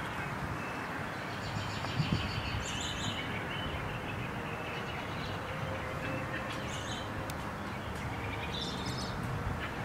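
Birds chirping now and then over a steady outdoor background hiss.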